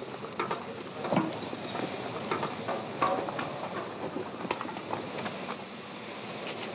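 DB Class 50 steam locomotive standing with steam hissing, and scattered irregular knocks and clanks.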